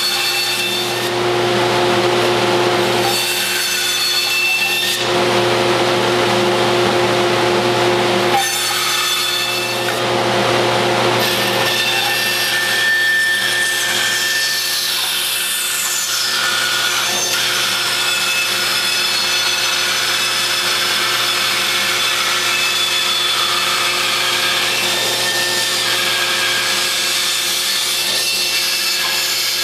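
Bandsaw cutting through a thick laminated wood propeller blank: a steady motor hum under the rasp of the blade in the wood. The cutting noise comes and goes over the first ten seconds or so, then holds steady.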